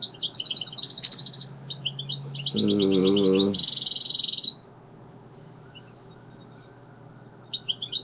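A small bird chirping in quick high trills and short notes, then stopping for about three seconds before chirping again near the end.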